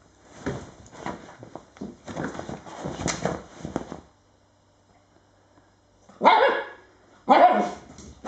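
Two dogs playing tug-of-war over a toy: a run of short, rough play noises for the first few seconds, then after a pause two loud barks about six and seven seconds in.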